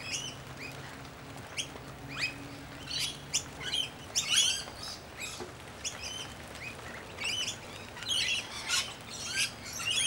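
A mixed flock of feeding birds, rainbow lorikeets among them, giving many short chirps and squawks, thickest in two busy bursts in the middle and near the end. A faint low hum sits under the first half.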